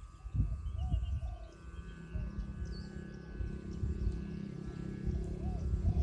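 Wind buffeting the microphone, with a steady multi-toned drone from a Thai chula kite's aek (bow hummer) and a few short bird chirps.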